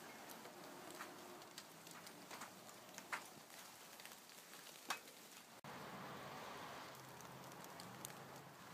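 Light rain falling faintly: a soft steady hiss with scattered sharp drops, the loudest about three and five seconds in.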